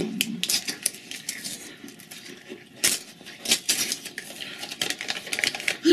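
Printed snack wrapper crinkling and crackling in irregular snaps as it is handled and opened.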